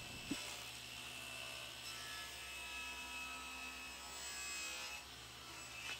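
Faint steady electrical mains hum, with a small knock about a third of a second in and soft sliding and rubbing as a hardwood board is pushed along a plywood table saw sled against its fence. The saw blade is not cutting.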